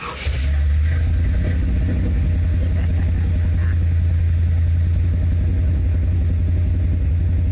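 1981 Corvette's 350 V8 firing up from a cold start and settling at once into a steady idle.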